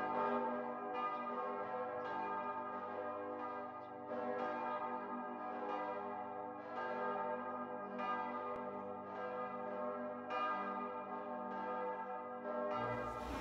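Church bells ringing, a fresh stroke about every three-quarters of a second, each one ringing on into the next. Just before the end a low room rumble comes in.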